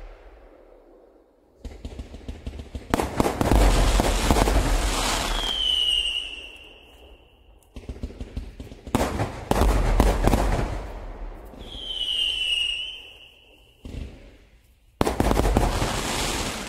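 Fireworks going off in dense, rapid volleys of crackling bangs that come in several bursts, each starting and stopping abruptly. Near the end of the first two bursts a high whistle slides down and then holds.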